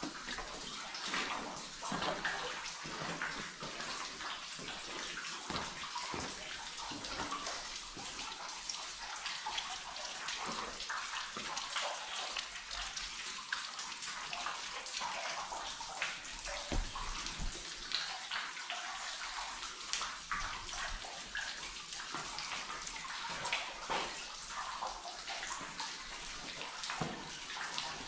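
Water trickling and splashing in an old mine tunnel, mixed with many small clicks and knocks of footsteps on the wet rock and gravel floor.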